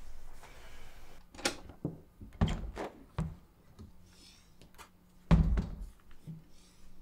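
A room door being opened, with several knocks and clicks. The loudest is a heavy thump about five seconds in.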